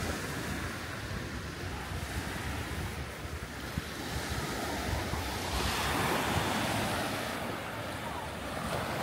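Sea waves breaking and washing onto the shore, with one wave swelling up and hissing about six seconds in. Wind buffets the microphone throughout.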